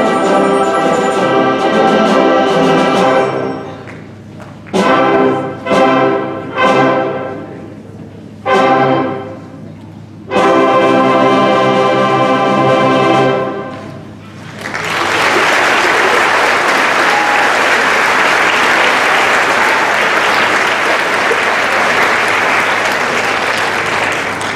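School concert band with brass finishing a piece: held full-band chords, then four short separate chords with pauses between them, then a long final chord that dies away. About halfway through, the audience breaks into loud applause.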